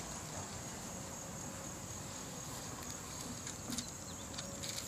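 Insects chirping outdoors in a steady, high-pitched drone, with a few faint short rustles or clicks in the second half, like pages being turned.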